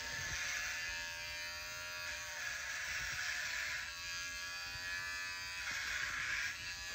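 Electric hair clipper buzzing steadily as it is run over the scalp, shaving hair down to the skin; its buzz strengthens and shifts slightly in a few stretches as the blades pass through hair.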